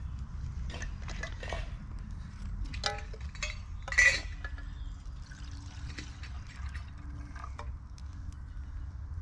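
Water poured from a metal flask into a small metal camping pot, with clinks and knocks of metal on metal as the flask and pot are handled; the loudest, ringing clink comes about four seconds in. A steady low rumble runs underneath.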